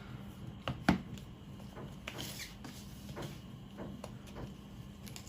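Cardboard packaging of an Apple Watch box being handled and opened: a few taps and knocks, the loudest about a second in, and a short sliding rub of cardboard a little past two seconds.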